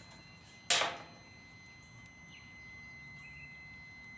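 Handling noise: one short, sharp snap about a second in as the meter's test leads are moved between the motor's wires, over a faint steady high whine.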